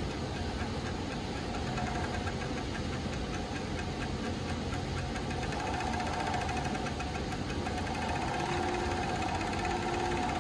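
JUKI MF-7923 industrial coverstitch sewing machine running steadily as it stitches knit fabric, with fast, even needle chatter and a whine that grows stronger a little past the middle.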